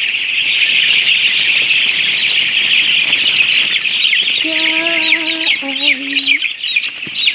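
A large flock of broiler chickens peeping all at once, a dense, high, continuous chatter; from about halfway in, single falling peeps stand out from the crowd.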